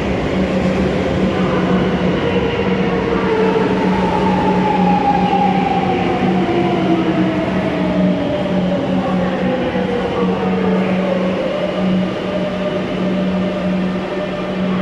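Madrid Metro series 7000 electric train pulling into the station and braking. The whine of its electric drive falls steadily in pitch as it slows, over a steady low hum.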